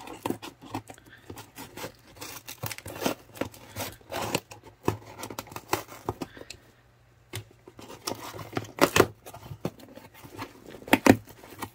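Scissors snipping and scraping through packing tape along the seam of a cardboard box, with many irregular clicks, then the cardboard flaps being torn and pulled open, with a few sharp cracks near the end.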